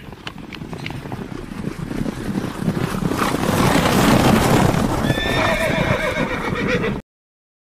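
Galloping horse hooves, growing louder over the first few seconds, joined about five seconds in by a high drawn-out tone. The sound cuts off abruptly about seven seconds in.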